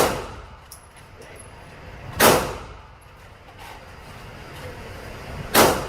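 Three gunshots a few seconds apart, each with a short echoing tail.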